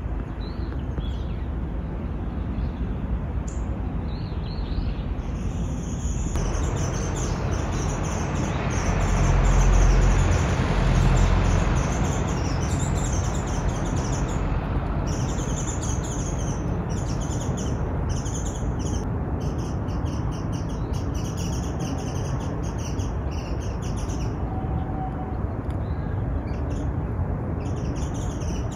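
Birds chirping and calling repeatedly over a steady hum of outdoor background noise. A low rumble swells up and dies away about a third of the way in.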